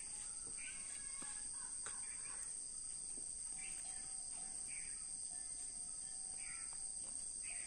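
Rural outdoor ambience: a steady high-pitched insect chorus, typical of crickets, with short bird chirps about once a second.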